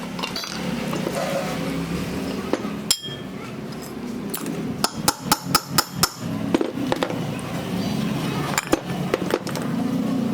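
Hammer tapping on metal during ceiling fan repair: a quick run of about eight sharp strikes a little under halfway in, with a single knock before it and another near the end.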